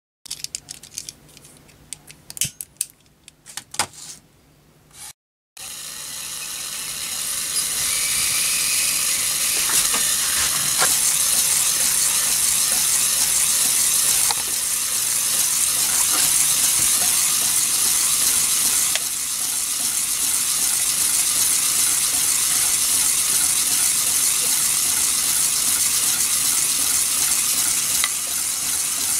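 A few light clicks, then after a cut the brass Hero's steam engine running: steam hissing steadily from the jets of the spinning brass sphere, building up over the first couple of seconds and then holding, with a faint rattle from the spinning parts. The sphere is spinning at about 2,100 rpm.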